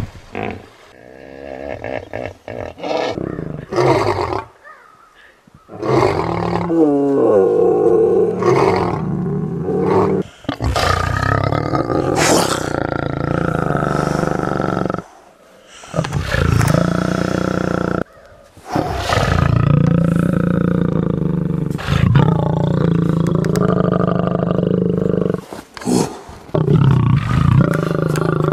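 Lioness roaring: a series of long, loud calls, each lasting several seconds with short breaks between, starting about six seconds in after a few quieter, broken sounds.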